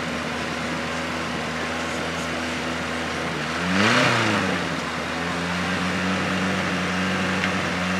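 Off-road buggy engine running steadily in the mud pit, revved up and back down once about four seconds in, with a rush of noise at the peak of the rev.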